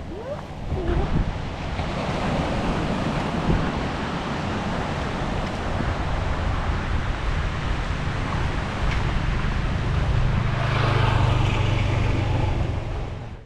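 Seaside street ambience: a steady rush of surf and wind on the microphone, with a vehicle engine's low hum growing louder in the second half. It cuts off suddenly at the end.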